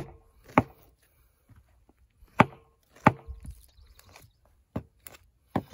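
Knife cutting through a skinned swamp rabbit's neck bone on a wooden board: about five separate sharp cracks and knocks, spread irregularly, as the blade works through the bone and meets the wood.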